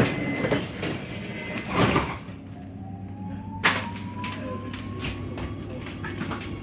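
Metro train's sliding doors closing with a knock and a swoosh. Then the electric traction motors whine, rising steadily in pitch as the train pulls away, over the low rumble of the carriage.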